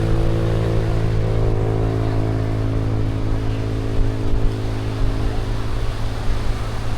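A motor vehicle's engine running close by: a steady low hum whose pitch does not change, its upper tones fading from about four seconds in, over a low rumble.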